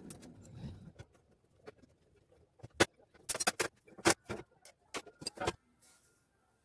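Scattered sharp clicks and knocks, with a run of louder metallic clinks between about three and five and a half seconds in: tools and screws on the metal case of an Ahuja SPA-10000 power amplifier as it is opened.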